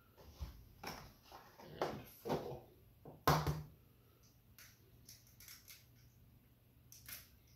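Eggs being cracked on the rim of a metal bowl and their shells broken apart by hand: a string of sharp cracks and taps, the loudest a little over three seconds in, followed by lighter clicks.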